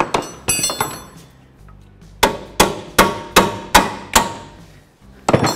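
Hammer blows driving a bolt into the front suspension knuckle: a couple of strikes at the start, then six evenly spaced strikes about three a second, each with a short metallic ring, and one more near the end.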